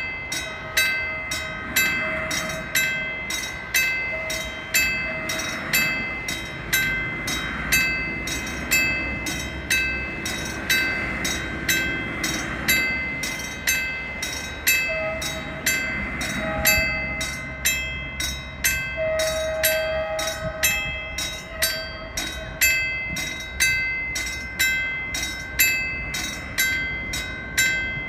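Freight train rolling past, its wheels clacking over rail joints in a steady, even rhythm, with a steady high tone throughout. Short held horn notes from the TCDD DE 24000-class diesel-electric locomotive come mostly in the second half.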